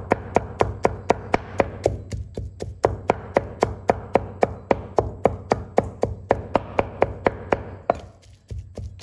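Cleaver chopping raw pork and garlic into mince on a wooden chopping board, with steady, evenly spaced strokes about four a second and a short pause near the end.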